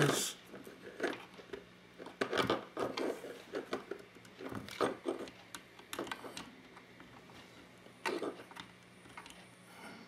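Scattered small clicks, taps and handling rattles as fingers work a flat ribbon cable and its connector back into place inside an open mini PC's metal chassis.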